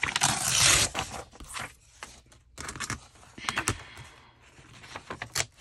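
Paper being handled at a craft table: a loud burst of paper rustling at the start, then scattered light rustles and taps.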